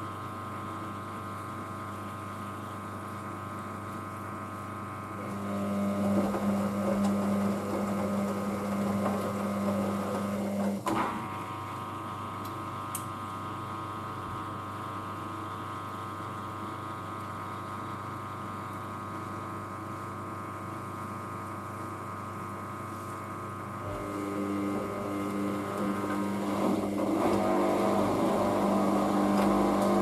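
Hoover DYN9144D3X washing machine's drum motor turning the drum and building up toward its second intermediate spin, over a steady machine hum. It runs louder twice: once about five seconds in until it stops with a sharp knock around eleven seconds, and again from about twenty-four seconds on, rising to the end.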